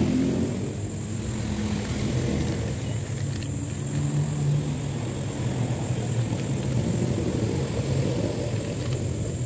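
A steady engine drone with a low hum whose pitch shifts slightly.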